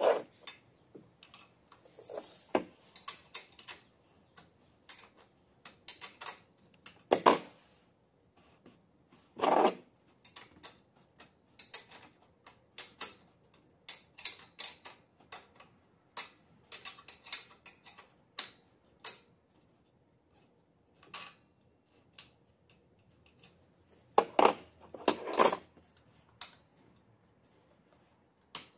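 Wrench and hand tools clicking and clinking on the metal rear axle, hub and brake parts of a small dirt bike, in irregular sharp clicks with a few louder knocks.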